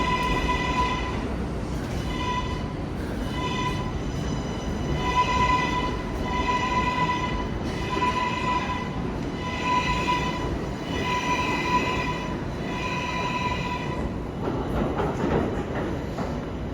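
Electronic alarm beeping steadily at first, then in repeating beeps about every second and a half, over the steady rumble of a subway station with trains standing. The beeping pauses near the end.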